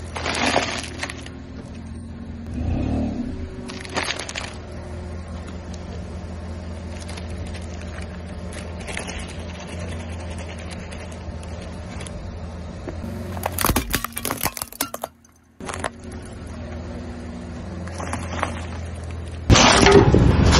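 Car tyre rolling over and crushing sealed packets of crunchy food, with sharp crackling crunches several times over a steady low engine hum. A sudden, much louder sound starts near the end.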